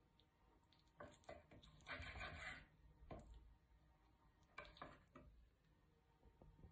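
Faint, scattered knocks and taps of a chef's knife on a wooden chopping board as raw chicken breast is sliced into strips, with a short rustling patch about two seconds in.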